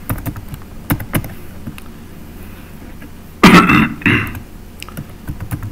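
A few scattered computer keyboard keystrokes, and about three and a half seconds in a person clearing their throat in two short, loud pushes.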